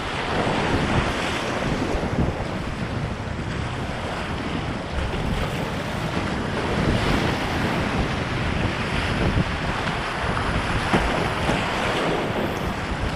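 Whitewater rapid rushing and crashing around a kayak, with wind buffeting the action-camera microphone into a heavy rumble. Paddle strokes splash into the waves now and then.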